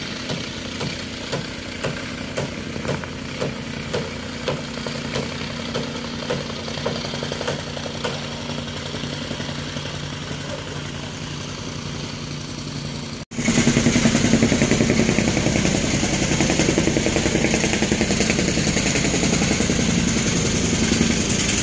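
Tamping rammer running on loose fill soil, its engine humming under a regular pounding of the foot about twice a second. About two-thirds of the way through there is an abrupt cut to a louder, steady engine running without the pounding.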